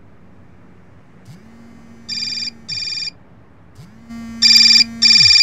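Mobile phone alarm going off: a low vibration buzz swells up and dies away twice, and paired electronic beeps sound over it. The second pair of beeps is much louder than the first.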